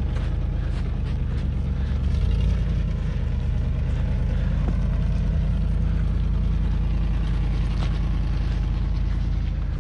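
Off-road vehicle crawling up a rocky trail: a steady low engine rumble with tyres rolling over gravel and stones, and a few sharp clicks of stones being hit.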